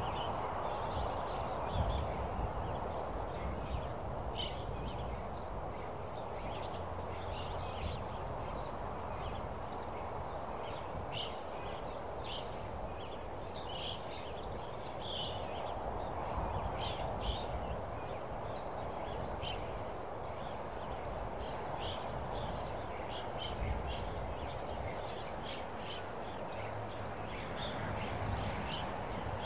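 Open-country ambience: a steady rush of air that slowly swells and eases, with frequent short bird chirps scattered throughout.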